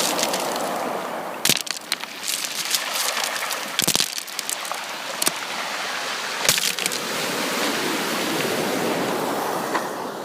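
Sea surf washing in a steady rush, with many sharp clicks and crackles through it, a few louder ones standing out.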